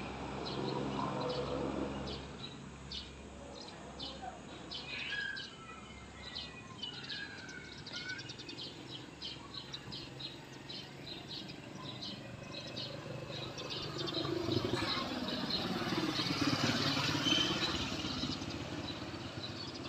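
Airbus A320-216 airliner passing overhead, its CFM56 turbofan engines a broad rumble that swells about two-thirds of the way in and peaks near the end. Birds chirp throughout.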